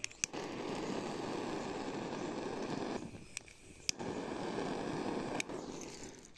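Two long, hard blows of breath onto a smouldering smoke torch to fan its embers into smoke for driving off honeybees. The first lasts about three seconds; the second follows a short pause, runs about a second and a half and tails off. A few sharp clicks come through it.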